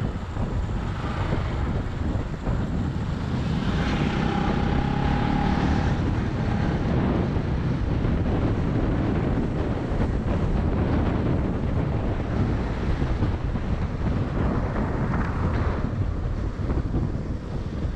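Motorcycle on the move, its engine running steadily under heavy wind buffeting on a helmet-mounted microphone.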